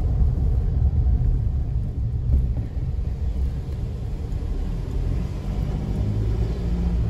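Steady low rumble of a moving car heard from inside the cabin: road and engine noise, with a faint held engine tone in the second half.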